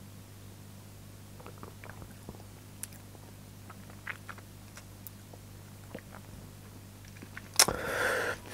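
Small wet mouth clicks and lip smacks of someone tasting beer, over a low steady hum; about a second before the end, a sharp smack is followed by a short, louder breathy rush.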